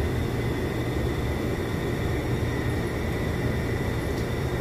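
An air conditioner running steadily in a small room: a low hum under an even hiss.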